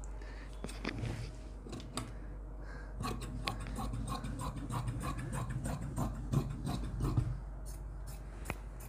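Large tailor's shears cutting through lining fabric on a cutting table: a run of crisp snips, about three a second, starting about three seconds in and stopping near the end. Before that, a few light clicks and rustles of the cloth being handled.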